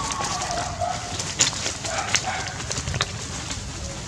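Dry palm-leaf thatch crackling and snapping as a macaque walks over it, with a few sharp snaps. A repeated wavering animal call sounds in the background, once near the start and again about two seconds in.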